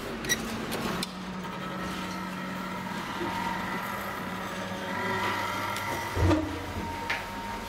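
A click as the call button of a DEVE hydraulic elevator is pressed, then a steady low hum with faint thin tones, and a heavy thump about six seconds in.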